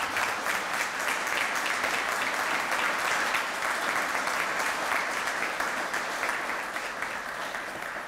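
Audience applauding, the clapping tapering off near the end.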